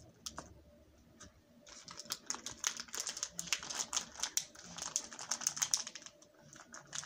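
Plastic bag holding slime crinkling and crackling as it is handled: quiet at first, then a dense run of rapid small clicks from about a second and a half in, easing off near the end.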